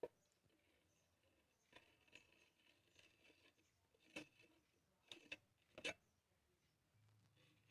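Near silence broken by a few faint, short taps and a little scraping: a glass tumbler knocking against a steel plate as its rim is pressed into the milkshake mixture. The taps come singly, mostly in the second half.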